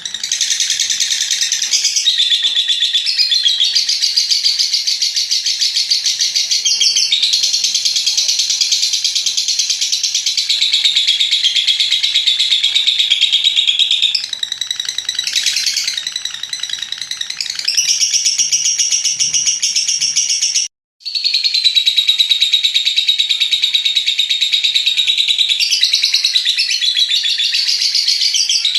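Lovebird 'ngekek panjang': a long, continuous, very rapid high-pitched chattering trill, softening for a few seconds about halfway and cutting out for a split second about two-thirds through before resuming.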